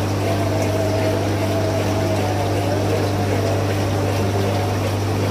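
Aquarium pump humming steadily, with water bubbling in the tank.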